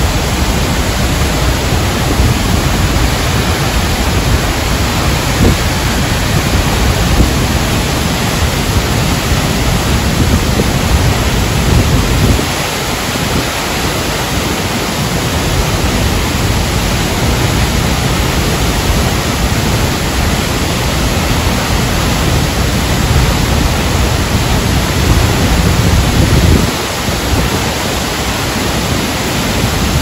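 Texolo waterfall's heavy torrent crashing into its plunge pool: a loud, steady rush of falling water. The deep rumble underneath drops away briefly twice, about twelve seconds in and again near the end.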